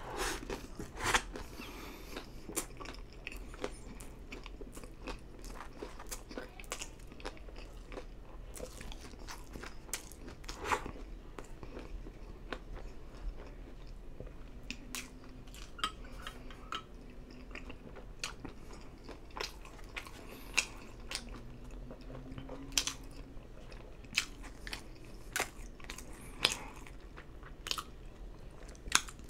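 A person chewing and biting White Castle slider burgers and French fries close to the microphone: irregular mouth smacks and clicks.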